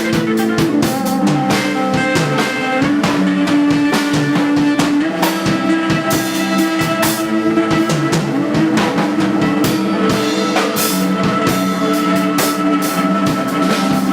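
A live band playing: a drum kit with snare and cymbal hits keeping a busy beat under sustained chords.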